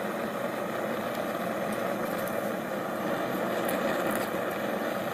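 Homemade 3/4-inch pipe propane burner firing into a small coffee-can forge, its flame running with a steady, even rush.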